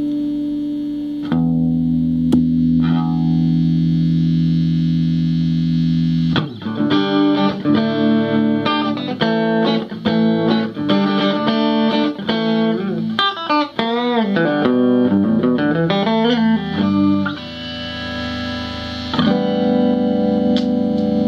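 Electric guitar played through a compressor pedal into a small Peavey combo amp: a long sustained chord, then a run of picked single notes with string bends, then sustained chords again.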